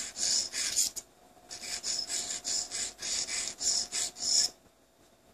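Wet synthetic sharpening stone scraping in short up-and-down strokes against the steel cutting edge of a dental universal curette, about four strokes a second. There is a brief pause about a second in, and the strokes stop about four and a half seconds in.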